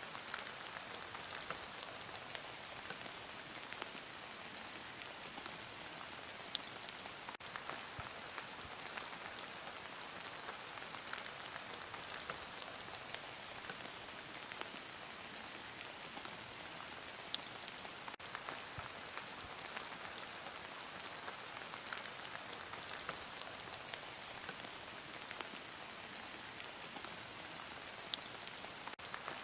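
Heavy rain falling steadily: a dense, even hiss with scattered sharper taps of individual drops.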